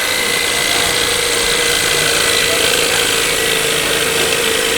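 An electric power tool's motor running steadily with a constant whine and a broad whirring hiss.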